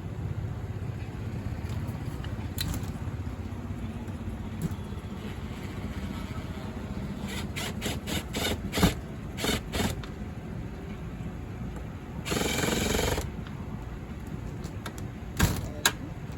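Sharp clicks and knocks of storm door latch hardware being handled and worked, over a steady low background rumble, with a short rushing noise lasting about a second partway through.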